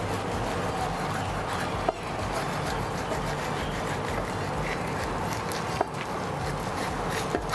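Kitchen knife sliding along a wooden cutting board as it separates the skin from a raw fish fillet, with a few sharp clicks of the blade against the board, over a steady background hiss.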